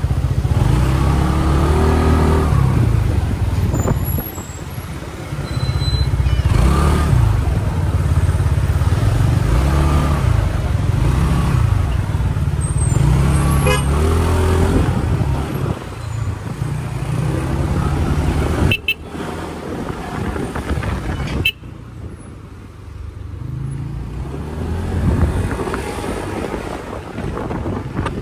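Kymco KRV 200 scooter's engine revving up and down again and again while riding in traffic, with road and wind noise. Two short sharp sounds come in the second half.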